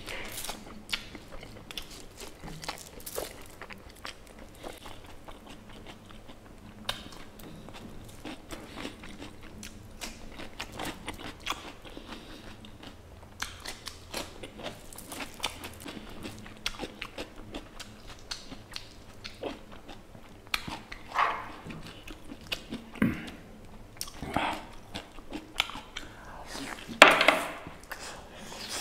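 Close-miked eating of pork curry with rice: steady chewing, biting and wet mouth sounds, with some crunchy bites. A few louder bites or slurps come in the last third.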